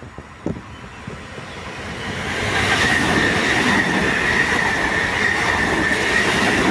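Train running along the station track, growing loud over the first two seconds and staying loud, with a steady high squeal from the wheels on the rails. A single click sounds about half a second in.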